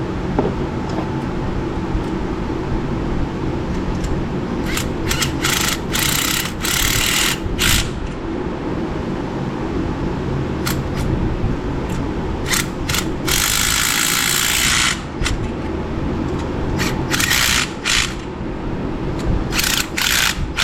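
Impact gun run in a series of short bursts on a mild setting, so as not to over-tighten, over a steady background hum.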